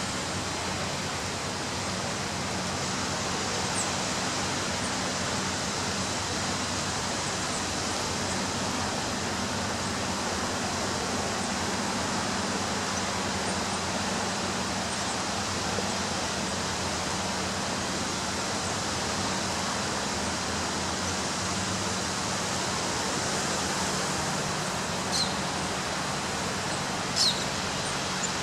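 Ocean surf breaking on a beach, heard as a steady, even wash of noise. A few short, high bird chirps come near the end.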